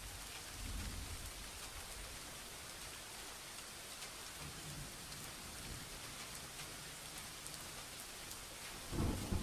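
Steady rain ambience, an even hiss with faint scattered drop ticks, and a low rumble swelling about a second in. A louder low thud comes near the end.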